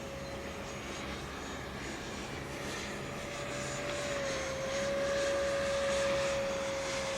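Electric ducted fan of a Freewing F-86 radio-controlled model jet in flight, a steady whine that dips slightly in pitch about four seconds in and grows louder in the second half.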